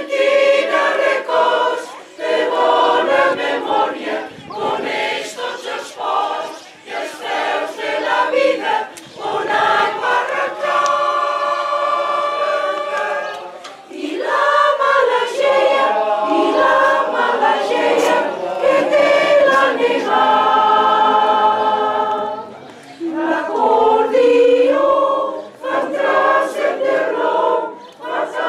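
Mixed choir of women and men singing a Catalan caramelles song, with two long held chords, about eleven and twenty seconds in.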